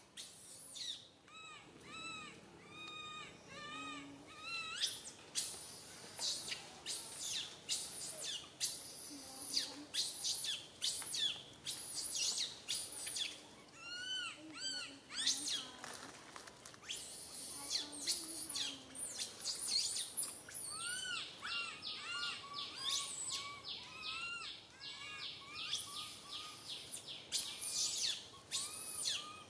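Baby macaque crying: runs of short squealing calls that rise and fall in pitch, broken by harsher shrieks.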